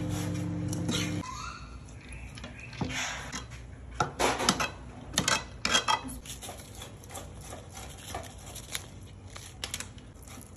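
Metal spoon clinking and scraping against a steel cooking pot while rice is scooped and layered, in a run of short irregular clatters that are loudest in the middle. A steady low hum stops about a second in.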